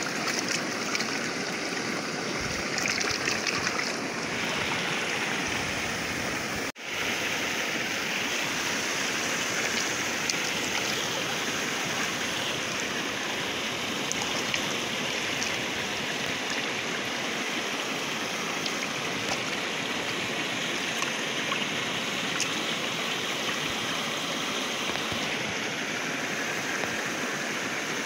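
River water rushing steadily past and through a shrimp net held in the current. The sound cuts out for an instant about seven seconds in.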